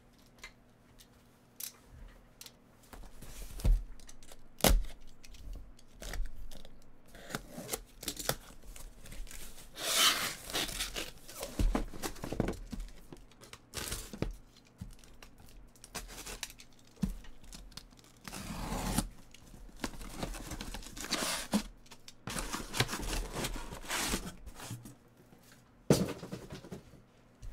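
Sealed cardboard shipping case being cut and torn open: several long rasping rips of packing tape and cardboard, with sharp knocks as the case and the shrink-wrapped card boxes inside are handled.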